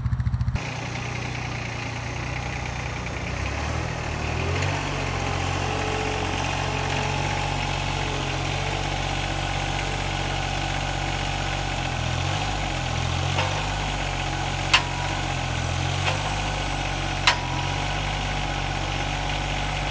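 A John Deere compact tractor's engine idling steadily, its speed wavering slightly twice. There are two sharp clicks a few seconds apart near the end.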